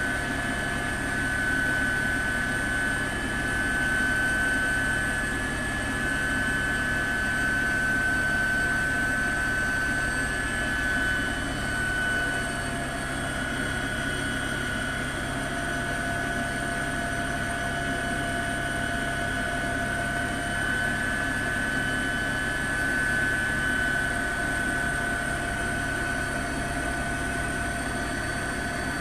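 Helicopter noise heard from aboard the helicopter: a steady drone with a high whine held over it.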